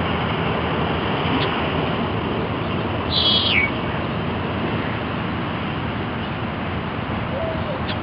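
Red-winged blackbird singing once about three seconds in: a short, buzzy, rapid trill that drops in pitch at its end. A few short high ticks come before and near the end, over steady background noise.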